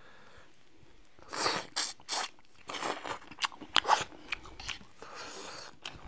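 Hard crayfish shell being cracked and peeled apart by hand: a run of short crackling crunches and sharp snaps, starting about a second in. The shell turns out to be empty.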